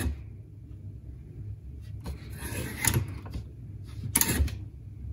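Spring-loaded wooden lever on a hinge being worked by hand: a sharp wooden clack right at the start, a rattle and knock around two to three seconds in, and another sharp clack a little after four seconds.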